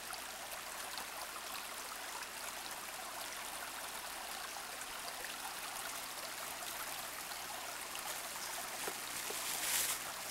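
Shallow rocky creek running over stones: a steady rush of moving water, with a brief louder noise near the end.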